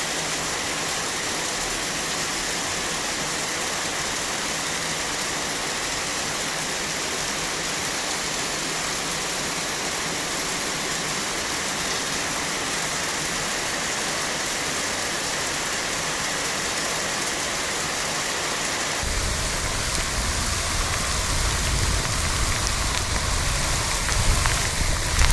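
Rain falling steadily, an even hiss of drops on surfaces. About 19 s in, a low rumble joins and the sound becomes louder and more uneven.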